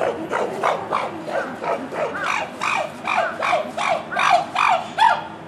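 Chimpanzee calling in a rapid series of hoots, about three a second, which grow louder and higher toward a peak near the end and then stop suddenly.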